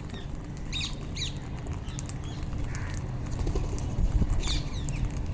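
Wild rose-ringed parakeets (Indian ringnecks) giving short shrill calls in two clusters, about a second in and again near the end, with scattered faint ticks in between.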